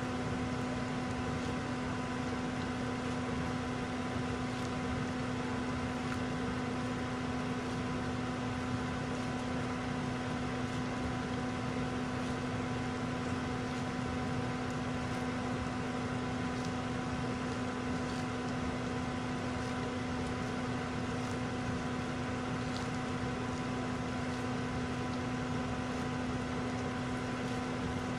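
Toyota Yaris idling: a steady mechanical hum with a few steady tones, while its windshield wipers sweep across the wet glass.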